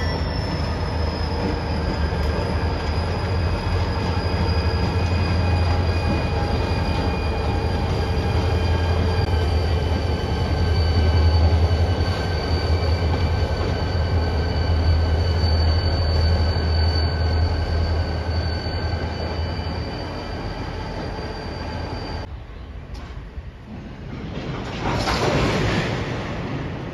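Train running close by: a deep rumble under a steady high whine that slowly falls in pitch. About three-quarters of the way through, the sound cuts abruptly to a quieter rush that swells briefly near the end.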